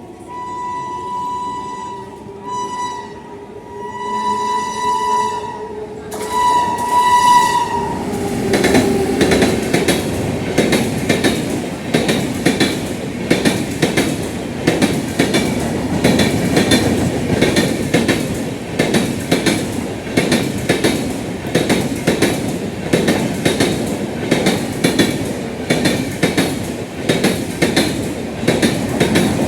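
Indian Railways WAP7 electric locomotive sounding its horn in about four blasts, two of them long, as it approaches. Then the Jan Shatabdi express passes, its wheels clattering loudly and rapidly over the rail joints.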